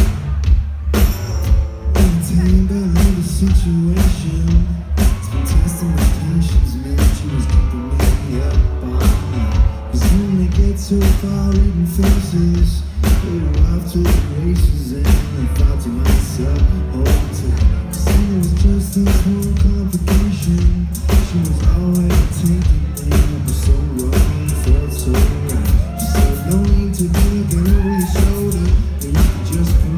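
Live performance of an electronic dance song by a band: a steady kick drum about twice a second under a deep bass line, with singing over it.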